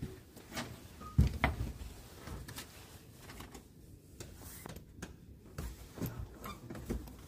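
Hotel room door being unlocked and pushed open: scattered clicks and knocks from the lock and handle, the loudest a low thump about a second in.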